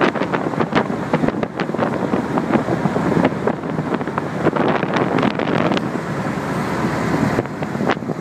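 Wind buffeting the microphone on a boat under way, over the rush and splash of choppy water against the hull.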